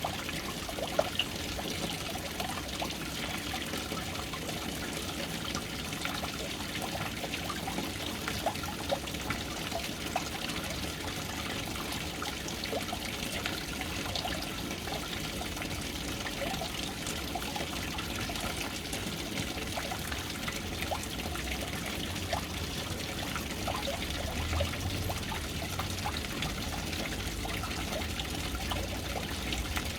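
Water falling steadily into a household water tank, a continuous pouring splash with small plinks of drops. A low rumble comes in near the end.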